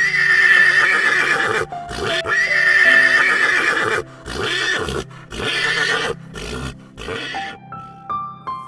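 A horse neighing: several whinnies in a row, the first two long and shrill with a quavering pitch, the later ones shorter. Music plays underneath, and a few rising notes come in near the end.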